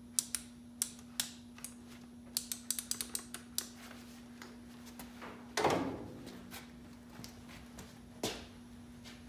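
Sharp metal clicks and clacks from a hand grease gun being handled and its head fitted to a grease fitting on the front steering and suspension linkage. There is a quick run of clicks around three seconds in and a louder clunk about halfway through, over a steady low hum.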